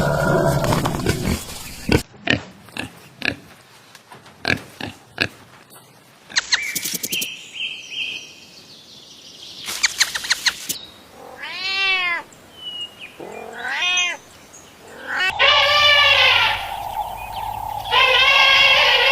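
A run of different animal calls cut together from separate clips: scattered clicks and knocks first, then two short pitched calls that rise and fall, then two longer, louder pitched calls near the end.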